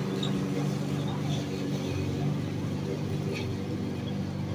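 Lawn mower engine running steadily while mowing grass.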